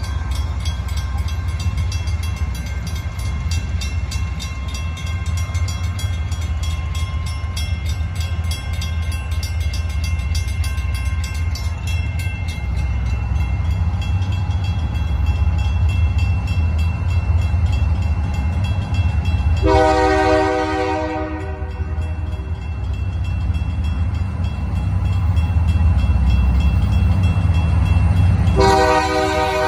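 Two mechanical railroad crossing bells ringing rapidly over a steady low rumble. A diesel locomotive's horn sounds twice: one blast about two-thirds of the way through, and a second starting just before the end as the train nears the crossing.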